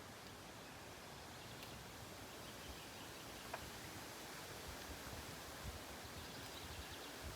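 Faint outdoor background noise with low rumble and a few light, scattered clicks.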